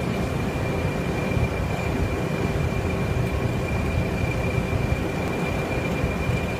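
English Electric Class 20 diesel locomotives running as the train pulls slowly away: a steady low engine rumble with a constant high whistle over it.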